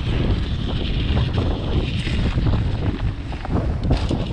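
Heavy wind buffeting on the microphone of a chest-mounted action camera as a mountain bike rolls along a dirt trail, with scattered small ticks and rattles from the tyres and bike over the rough ground.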